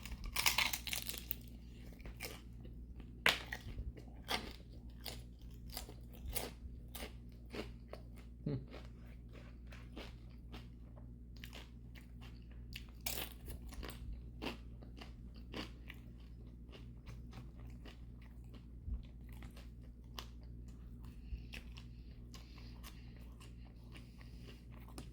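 Close-miked biting and chewing of a crispy fried cream cheese rangoon: a loud crunch about half a second in, then repeated crisp crunches and chewing clicks throughout, over a faint steady low hum.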